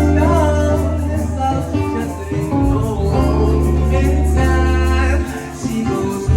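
Band music with singing over sustained bass notes; the bass drops out briefly about five seconds in.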